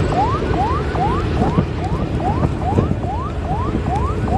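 An electronic siren wailing in a fast yelp pattern: a rising sweep repeated about twice a second, over a steady low rumble.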